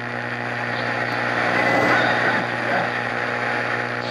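Grundig Satellit 750 shortwave receiver tuned to a weak signal on 7780 kHz: steady static hiss and a low hum, with a faint voice barely showing through the noise, a little stronger about two seconds in.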